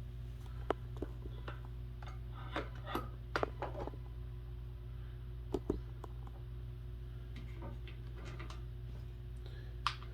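Scattered light clicks and knocks of metal desk-frame parts and hardware being handled and fitted, a few at a time with pauses between, over a steady low hum.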